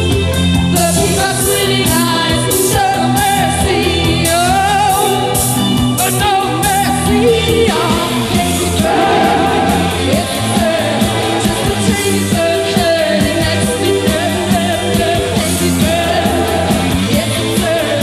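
Post-punk rock band playing live: a woman sings lead over electric bass, guitar and a drum kit with steady cymbal and snare strokes.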